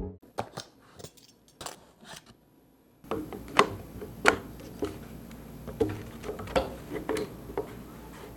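Light clicks and taps of computer parts or packaging being handled, sparse at first, then about one every two-thirds of a second once a faint room tone comes in.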